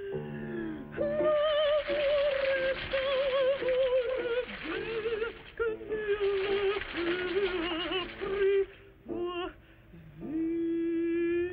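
A soprano singing operatically with a wide, wobbling vibrato in short phrases over a faint accompaniment, then holding a lower note near the end.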